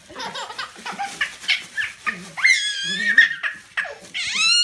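Wrapping paper crinkling as a small dog tugs at it, then a baby's high-pitched squeals of delight, a long one partway through and rising ones near the end.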